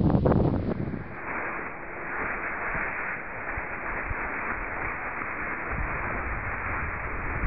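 Wind buffeting the microphone with a low rumble for about the first second, then a steady hiss of wind on a snow slope.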